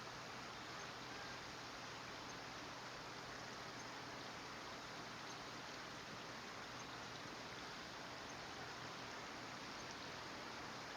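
Faint, steady hiss of outdoor background noise, even throughout, with no distinct bird calls.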